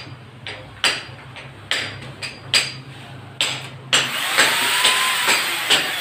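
Sharp hammer blows with a metallic ring, one about every second, on the steel ceiling framing. About four seconds in, a power tool starts and runs with a whine that rises and then holds, while the blows go on.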